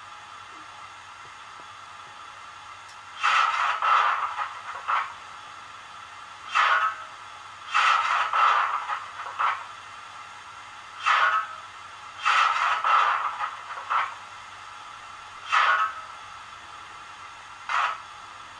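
Sound-decoder effects from a model BR Standard Class 9F steam locomotive standing idle: irregular bursts of hissing steam, some short and some lasting a second or two, over a faint steady background hiss.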